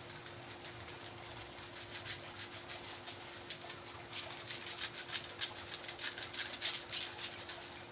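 Hands massaging skin: quick, irregular light clicks and slaps, growing denser and louder about four seconds in.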